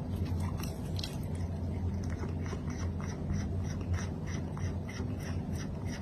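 Chewing, with quick crisp crunches about three a second over a steady low hum.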